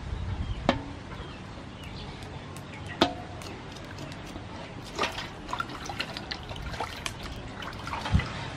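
Water sloshing and dripping in an aluminium basin as raw pork legs are washed and rubbed by hand, with a few sharp clicks, three of them standing out.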